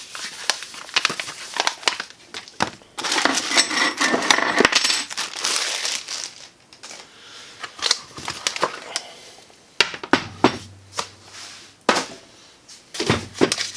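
Packaging being handled during an unboxing: plastic and cardboard rustling, densest from about three to six seconds in, with many sharp clicks and light clinks as the grinder's parts and accessories are taken out and set down.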